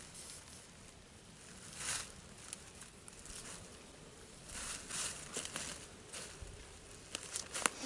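Short, soft bursts of rustling and crinkling, with a few sharp clicks near the end, from a hand handling the nylon webbing tree strap and knot.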